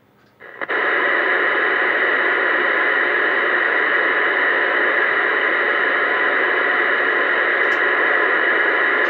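Uniden Bearcat 980SSB CB radio on channel 19 giving out a loud, steady rush of static through its speaker, starting about half a second in: a weak incoming signal carrying only hiss.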